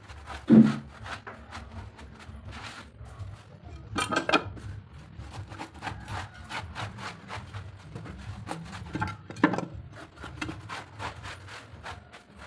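A cloth rubbed and scraped over the rough, sooty cement top of a kitchen hearth in quick, uneven strokes, sweeping debris together, with a few louder knocks at intervals.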